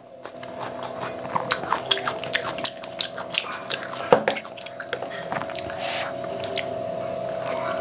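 Close-miked chewing and wet mouth sounds from someone eating, with many small clicks. About four seconds in, a metal spoon knocks once against a glass bowl as it dips in to scoop.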